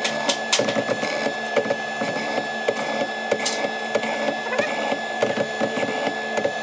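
Mortising machine running steadily as its bit cuts a mortise into a thick hardwood slab, with frequent sharp clicks and cracks of wood chips breaking away.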